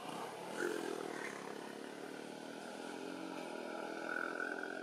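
A vehicle engine runs steadily in the background, with a higher whine growing louder near the end.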